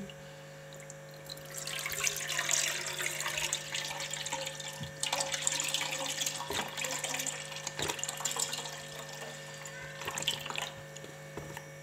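Milk poured in a steady stream into a nonstick pan, a rushing, splashing pour that starts about a second in and stops near the end, over a faint steady electrical hum.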